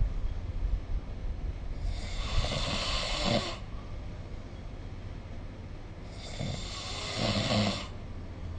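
A sleeping person snoring twice, about four seconds apart. Each snore lasts about a second and a half: a rough, low rattle with a breathy hiss over it.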